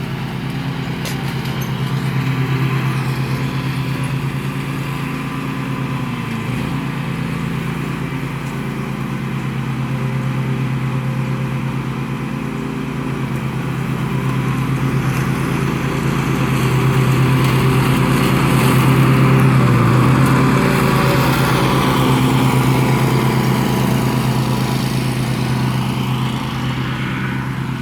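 Riding lawnmower engine running steadily as the mower is driven, growing louder for a few seconds past the middle.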